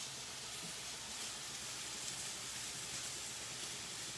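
Potatoes deep-frying in a pot of hot oil on a gas stove: a steady sizzling hiss.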